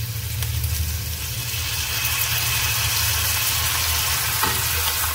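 Chopped onion, capsicum and chillies sizzling in hot oil in a frying pan as soy sauce is poured in and stirred with a wooden spatula. The sizzle grows louder over the first couple of seconds and then holds steady, over a steady low hum.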